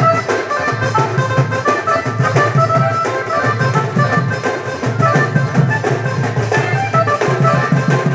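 Loud music with a steady drum beat and quick, short melody notes, played over a DJ truck's sound system.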